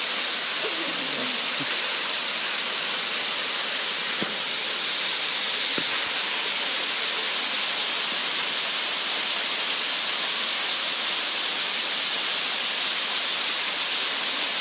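Waterfall: a steady rush of falling water, a loud hiss strongest in the high range, dipping slightly in level about four seconds in.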